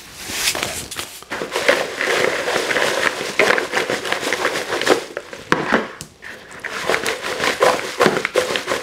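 Freshly fried french fries tossed in a plastic bowl lined with paper towels: the fries rattle against the bowl and the paper towel crinkles, a dense run of small clicks and rustles that eases off briefly about six seconds in.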